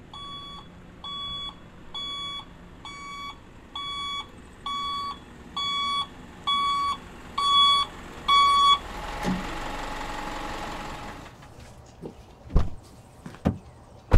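Delivery truck's reversing alarm beeping about once a second, getting louder for about nine seconds. Then a short rush of noise with a low rumble, and a couple of thumps near the end.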